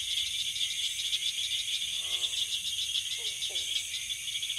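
Crickets chirping in a steady, rapidly pulsing chorus, with a few faint, short, lower calls underneath.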